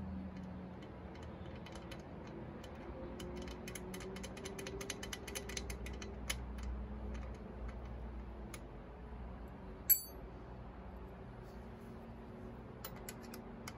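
Metal clicks of hand tools and parts as an air cleaner is fitted to a motorcycle carburetor: a run of quick clicks in the middle, then one sharp metallic clink about ten seconds in that rings briefly, and a few more clicks near the end. A faint steady hum lies underneath.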